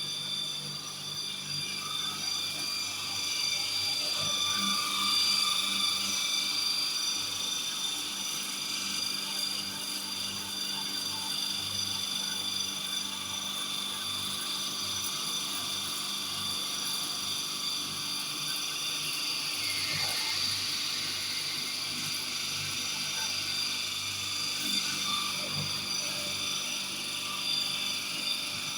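Friction stir welding machine running, its rotating tool travelling along the seam between two aluminium panels. A steady whine of several high tones sits over a fast, even low mechanical pulsing.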